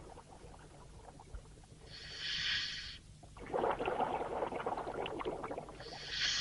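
A scuba diver breathing through a regulator underwater. A short hiss of inhalation comes about two seconds in, then a longer burst of bubbling exhalation, and the next inhalation hiss comes at the very end.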